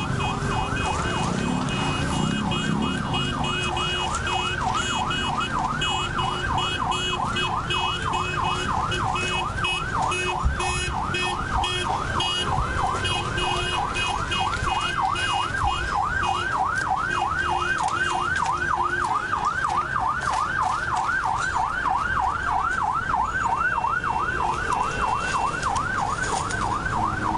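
Emergency vehicle siren in yelp mode, sweeping rapidly up and down at about three cycles a second, with a second, higher electronic beeping tone pulsing quickly over roughly the first two-thirds.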